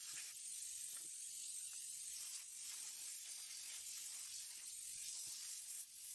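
Faint, steady hiss of compressed air from a brass blow nozzle, used to clear tiny glass shards from an opened tablet frame.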